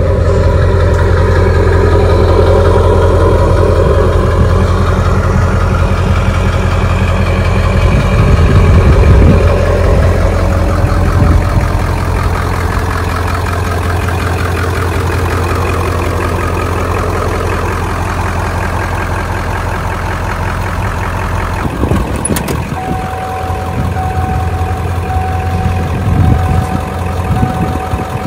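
The truck's 7.3 Power Stroke turbo-diesel V8 idling steadily. A click about three-quarters of the way through is followed by a steady electronic warning tone from the cab.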